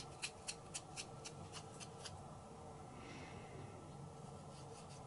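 Quiet small sharp ticks, about four a second for the first two seconds, then a faint brief scratchy rustle about three seconds in: light hand-handling sounds at a work table.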